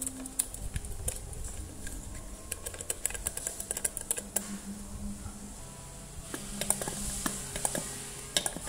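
Irregular light clicks and taps of small plastic and metal parts as the wires and connector socket are fitted into an electric kettle's stainless steel base, with a screwdriver set to a screw near the end.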